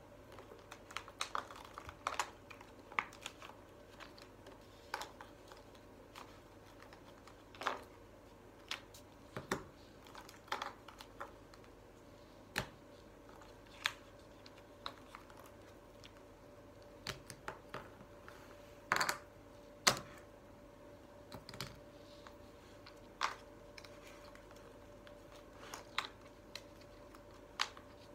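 Scattered clicks and clacks of small shape blocks being picked off a board and set down, one every second or so, with a couple of louder knocks about two-thirds of the way through.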